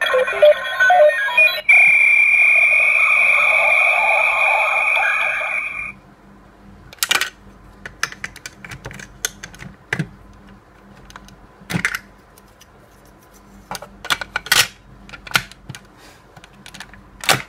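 Electronic sound effects from a DX Ixa Knuckle and Ixa Belt toy's speaker: a quick run of mixed beeps, then a long steady high-pitched tone that cuts off about six seconds in. After it come scattered plastic clicks and knocks as the toy is handled and its whistle-shaped Fuestle piece is fitted.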